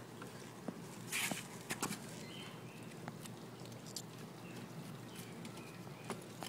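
Faint handling noises from small objects being picked at by hand over a plastic basin of water: a few light clicks and taps, with a brief hiss about a second in.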